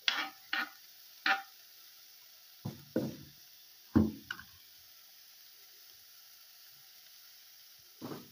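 A few sharp taps and knocks as chopped tomatoes are tipped off a plastic chopping board into a stainless steel pot of sukuma wiki, followed by several duller thumps about three and four seconds in; the rest is quiet.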